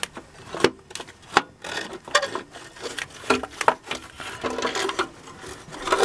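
Sheet-metal valve cover of a Dodge 318 V8 being worked loose off the cylinder head by hand: irregular clicks, knocks and short scrapes of metal as it shifts against the head and the wiring around it.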